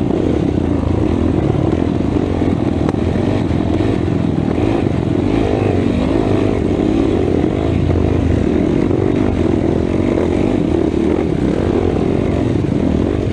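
Racing ATV engine running hard, heard close from the quad itself, its pitch wavering up and down as the throttle is worked.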